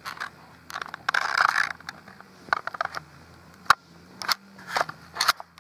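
Handling noise from a baby's hands grabbing a phone that is recording: irregular taps, clicks and rubbing right on the microphone, with a longer scuffing about a second in.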